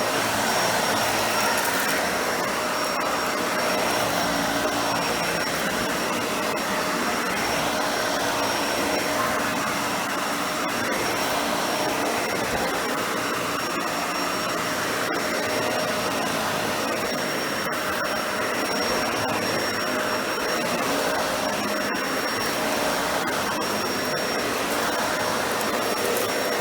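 Dyson Ball Animal 2 upright vacuum running steadily on a low-pile rug: its suction motor and motorised brush roll give a rushing noise with a steady high whine, and there are a few faint clicks.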